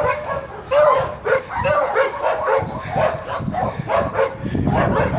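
A dog barking repeatedly in short yips, about two a second. A low rumble builds underneath from about four seconds in.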